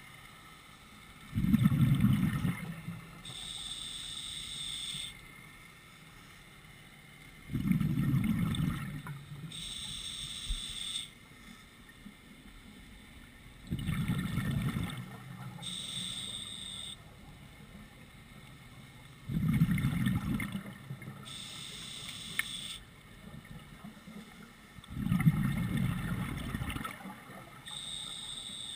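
Scuba diver breathing through a regulator underwater. Each breath is a hissing inhale with a thin whistle, then a burst of low, rumbling exhaled bubbles. The cycle repeats about every six seconds, five breaths in all.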